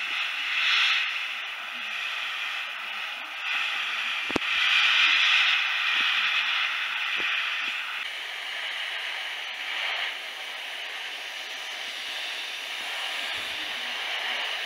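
Airbrush spraying thinned black surfacer: a steady hiss of air and paint that swells and eases as the trigger is worked, with a small knock a little over four seconds in.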